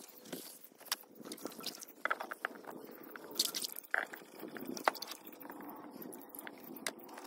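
Raw potato wedges being lifted out of a glass bowl of water by gloved hands and laid on paper towel: small splashes, drips and soft wet handling, with scattered light clicks.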